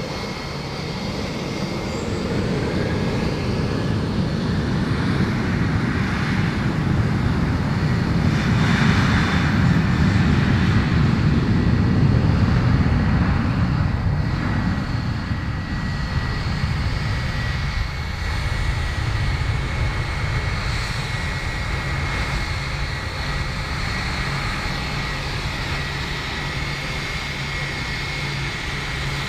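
Jet engine noise of a Boeing 737 on the runway, building to its loudest about ten seconds in and then fading. It gives way to the steadier, quieter hum and high whine of an Airbus A320's engines as it taxis.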